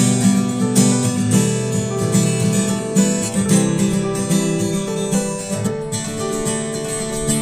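Acoustic guitar music: plucked and strummed chords with frequent note attacks, which thin out toward the end as the notes are left to ring.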